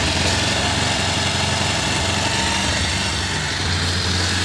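Air-cooled single-cylinder motorcycle engine idling steadily and quietly. It is running on a new ignition coil, spark plug cap and carburetor repair kit, and its speed holds even rather than rising and falling, the fault the mechanic had put down to a bad coil.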